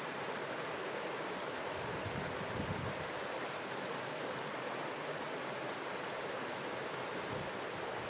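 Stream water running, a steady rushing hiss, with a brief low rumble about two and a half seconds in.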